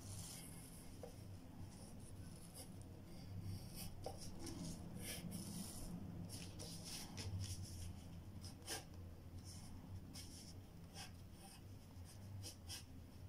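Pencil scratching on paper in many short, irregular strokes, over a low steady hum.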